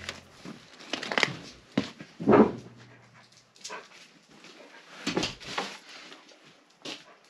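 German Shepherd dog moving about and making short dog sounds, heard as a handful of separate short sounds, the loudest about two and a half seconds in.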